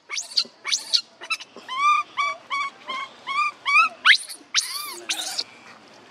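Baby macaque crying: short high squeals, then a run of short arching cries about three a second, ending in two louder, longer screams about four to five seconds in.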